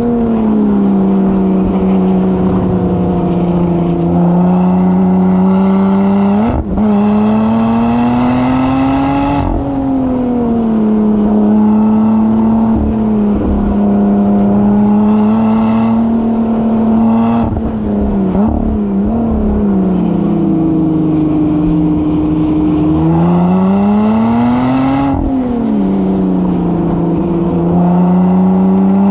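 Engine of a track-day vehicle being driven hard round a circuit. The pitch climbs steadily under acceleration and falls away for long stretches when slowing for corners, with sudden steps in pitch at gear changes.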